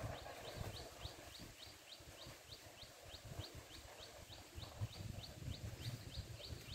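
A small bird's high, falling chirp, repeated steadily about three times a second, faint against a low rumble of wind on the microphone.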